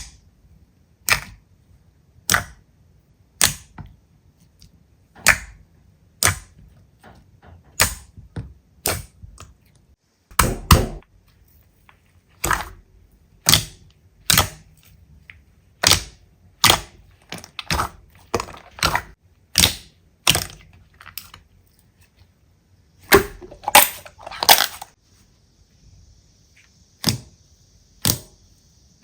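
Slime being pressed and worked by hand, giving a string of sharp pops roughly once a second, with a quicker run of pops about two-thirds of the way through.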